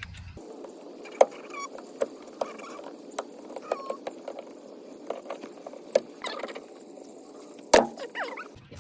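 Sharp plastic clicks and taps of car interior trim and its clips being worked loose, the loudest about a second in and near the end, with a few birds chirping in the background.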